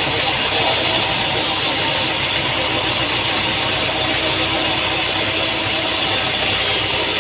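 Sawmill machinery running steadily: an engine-like drone under a constant hiss, with no changes or impacts.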